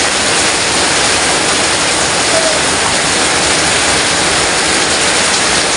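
Heavy tropical downpour: a loud, steady hiss of rain falling and splashing.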